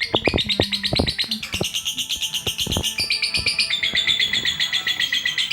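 Lovebird chattering: a fast, unbroken stream of high chirps. A few sharp clicks sound in the first three seconds.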